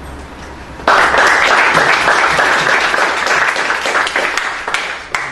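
A small group applauding, starting suddenly about a second in and thinning out near the end to a few last claps.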